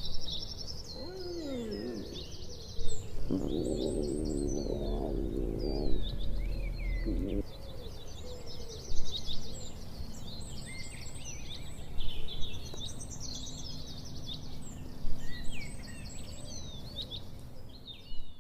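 Birds singing in short chirping phrases that recur about every three seconds. About three seconds in, a low growling stomach rumble sounds for some four seconds and stops abruptly.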